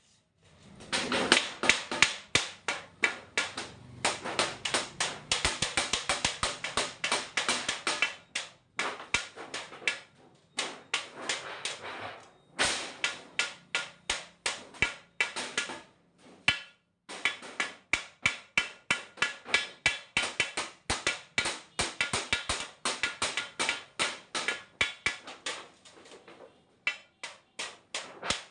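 Rapid, repeated hammer blows, several a second, in runs of a few seconds broken by short pauses.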